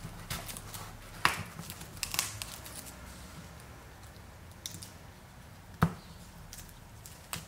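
Gloved hands handling a spin-on oil filter and a plastic oil bottle on cardboard: faint rustling and scraping with a few sharp clicks and knocks scattered through, one of the loudest late on as the filter's rubber gasket is pulled out.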